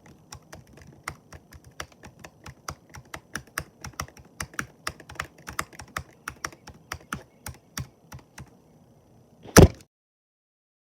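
Typing on a computer keyboard: a steady run of key clicks, about three to four a second, which stops near the end, followed shortly by a single loud thump, after which the sound cuts out completely.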